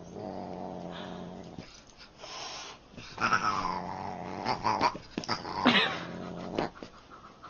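A cat growling in long, rough stretches, broken by short sharp cries, one falling in pitch a little over five seconds in.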